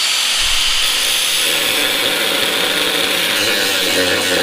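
Small cut-off grinder cutting into a steel bolt head: a steady high whine that sags a little as the disc bites, with harsh grinding that grows rougher later on. The bolt is being split because it is seized and only spins.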